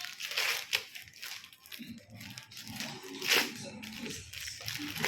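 Gift wrapping being torn and crumpled in a series of rips and rustles, with the loudest rip a little over three seconds in.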